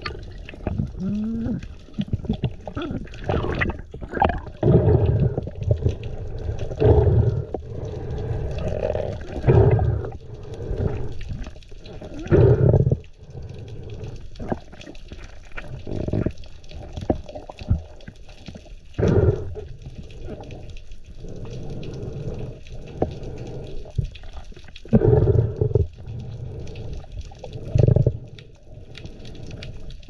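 Muffled underwater water noise through a submerged camera housing, swelling and fading in irregular surges every second or two.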